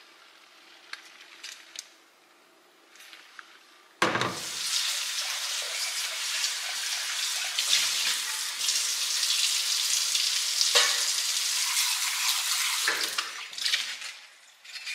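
Kitchen faucet running water into a stainless steel pot as it is rinsed out, turning on suddenly about four seconds in and stopping near the end, with a few knocks of the pot under the stream. Before the water starts there are only a few faint clicks.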